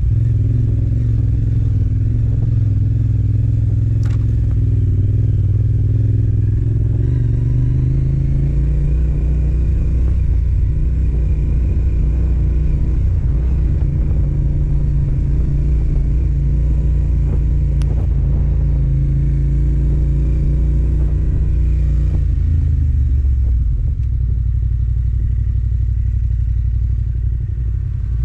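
Yamaha Ténéré 700's parallel-twin engine running under way as the bike rides off-road, its pitch rising and falling with the throttle, and easing off briefly near the end.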